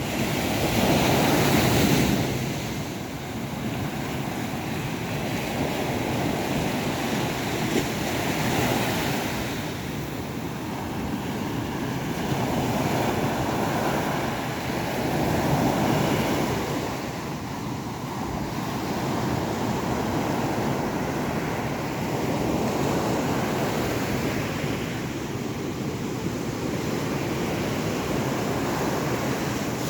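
Sea waves breaking and washing ashore, the surf swelling and fading every several seconds.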